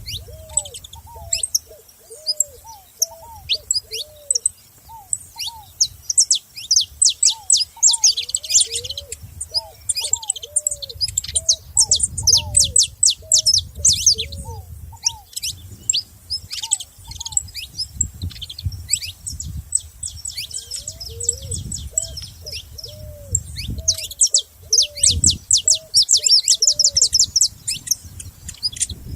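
Saffron finches chirping and singing in fast bursts of high, quick notes, densest in a few long trilling stretches. A lower-pitched call repeats in runs of rising-and-falling notes, about two a second, through much of it.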